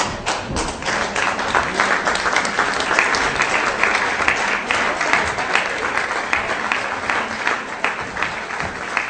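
Applause mixed with the rapid clicking of many press photographers' camera shutters, starting suddenly and swelling over the first couple of seconds, then holding steady.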